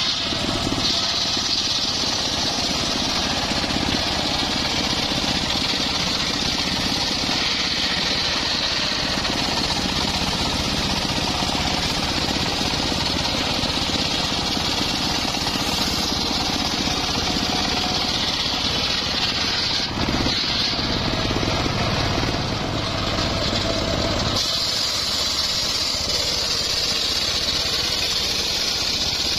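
Engine-driven homemade circular saw bench running steadily while its large blade rips a teak log lengthwise, a constant motor sound under a high sawing hiss. The sound changes abruptly about 24 seconds in as another log is being cut.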